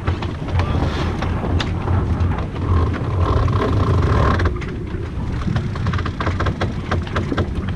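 Wind buffeting the microphone aboard a sailing yacht under way, a steady low rumble with scattered sharp clicks from the deck gear.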